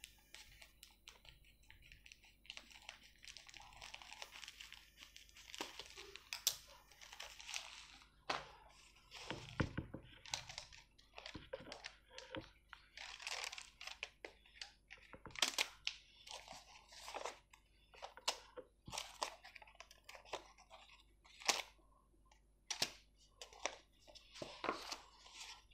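Paper envelopes being cut with scissors, torn and opened by hand: faint, scattered crinkles, rustles and tearing snaps.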